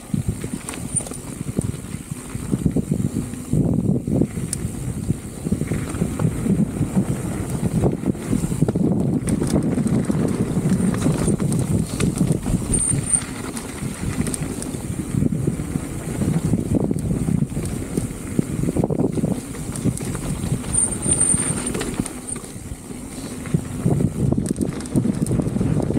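Specialized Status 160 mountain bike rolling down a bike-park trail: a continuous rumble of tyres on the dirt with dense rattling and knocking over the bumps, easing off briefly a few times.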